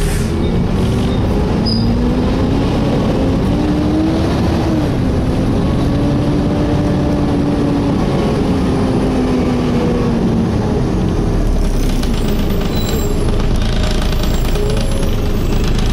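Volvo B7TL double-decker bus's engine and cooling fan heard from the lower deck while the bus is moving. A whine over the rumble rises over a couple of seconds, dips briefly, holds steady, then falls away about ten seconds in.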